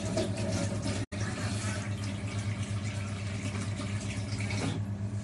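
Water running from a kitchen tap into a sink, shutting off near the end, over a steady low electrical hum.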